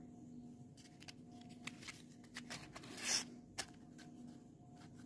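Cardboard matchbox being handled: faint taps and rustles, then a short scraping swish about three seconds in as the drawer slides shut, followed by a small click.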